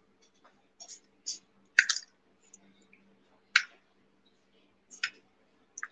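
Egg being cracked and its shell handled over a small plastic bowl: a few short, sharp clicks and taps, the loudest about two seconds in and another about halfway through.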